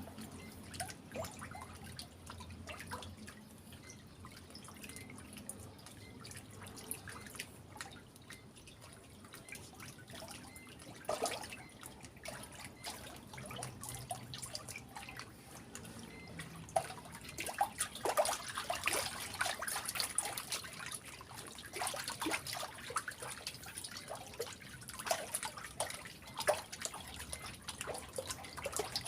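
Water dripping and splashing lightly, in irregular small drips and splashes that grow busier about halfway through.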